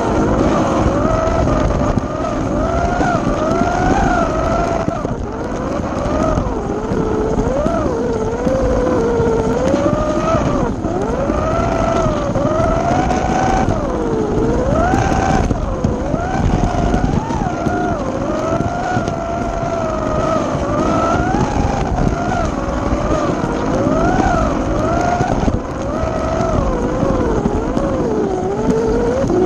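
Scalextric Ford GT slot car's small electric motor whining, heard from on board the car. The pitch rises and falls again and again as the car speeds up and slows, over a steady rumble of the car running in the track slot.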